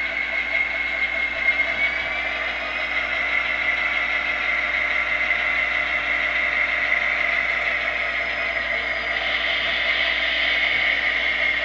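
HO-scale Athearn Genesis SD70ACE model locomotive's Tsunami sound decoder playing a diesel prime-mover sound through its small onboard speaker as the model runs: a steady, thin engine drone with almost no bass. A brighter, hissier tone comes up about nine seconds in.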